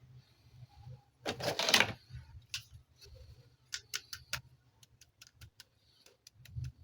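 Plastic toy and packaging handled: a loud rustling scrape about a second in, then a run of a dozen or so sharp plastic clicks.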